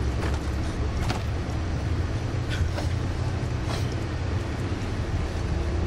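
A bus in city traffic, heard from inside the cabin: a steady low engine and road rumble, with a few brief clicks over it.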